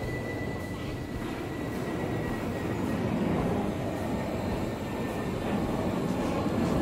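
Cheap Chinese Mavic-style toy quadcopter in flight: its propellers make a steady buzzing hum that grows louder about three seconds in, with a thin high whine that fades away in the first two seconds.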